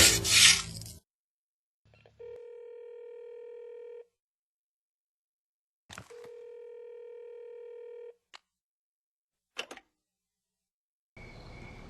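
Telephone line tones over a handset: a click, a steady two-second tone with a slight flutter, a two-second pause, then the same tone again for two seconds, followed by a few short clicks.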